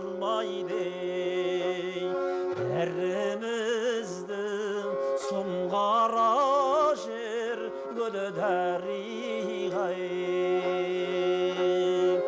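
Kobyz music: a wavering, sliding melody over a steady low drone note.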